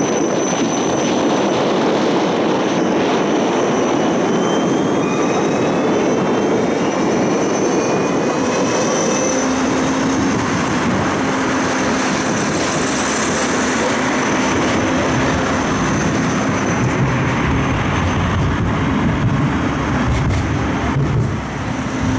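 Siemens Combino low-floor tram heard from inside, pulling away from a stop: the electric traction drive's whine rises in pitch over the first few seconds. It then runs on steadily with wheel-on-rail noise and a steady electrical hum.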